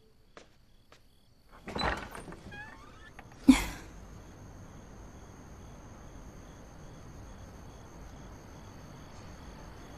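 A short rustling swish about two seconds in, then a single loud thud about a second and a half later. After it, a faint steady background hiss with a thin high tone.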